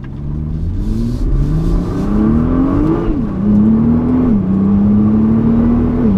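Nissan GT-R's twin-turbo 3.8-litre V6 accelerating hard, its pitch climbing and then dropping sharply with each quick upshift of the dual-clutch gearbox: three upshifts, about three seconds in, a second later, and near the end.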